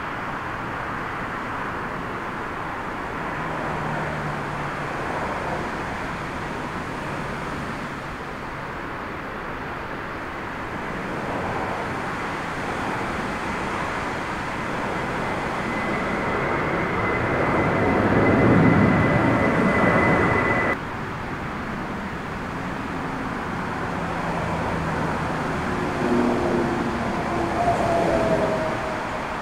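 Airbus jet airliner engines with a steady rushing noise of storm wind. The noise swells as an airliner passes low overhead, with a thin high engine whine, then cuts off suddenly about two-thirds of the way through.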